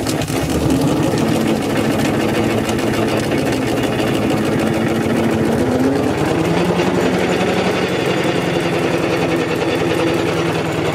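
Half-scale Foden C-type steam lorry's two-cylinder compound steam engine running as the lorry drives, a steady mechanical sound with a fast, even beat. Its pitch shifts about six seconds in.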